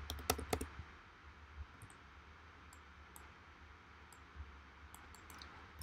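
Clicking of a computer mouse and keyboard while values are edited: a couple of sharp clicks close together near the start, then fainter scattered clicks, over a low steady hum.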